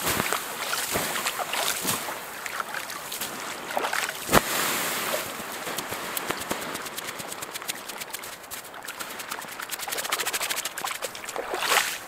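Campfire being doused with lake water: the embers hiss and crackle steadily as the water turns to steam, with a sharp splash or knock about four seconds in.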